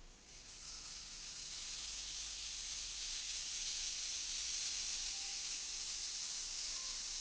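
Rainstick being tilted, its beads pouring through with a steady rushing hiss that swells over the first couple of seconds and then holds.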